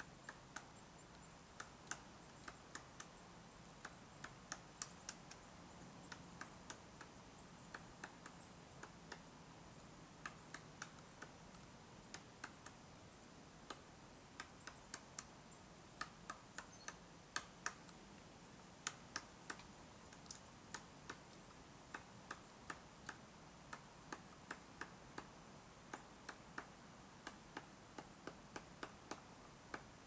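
Pileated woodpecker pecking and chiseling into a tree trunk while foraging: sharp, irregular knocks, roughly one to three a second, some in quick pairs, with short pauses between runs.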